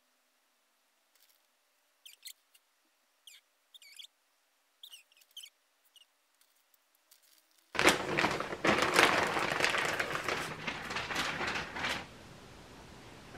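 Loud crinkling rustle of a clear plastic poly bag, starting about halfway through and lasting about four seconds as a wool scarf is pulled out of it. Before that, a few faint, scattered bird chirps.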